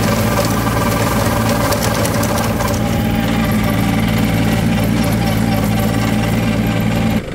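Swaraj Target 630 tractor's three-cylinder diesel engine running steadily under load while driving a rotavator through stubble. It cuts off suddenly near the end.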